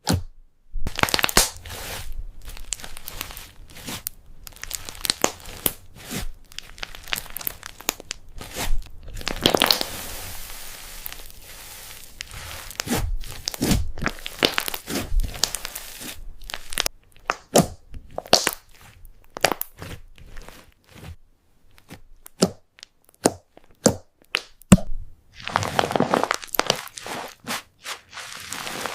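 Slime being handled by hand, making many irregular sharp clicks and pops. The crackling thickens into dense stretches about ten seconds in and again near the end.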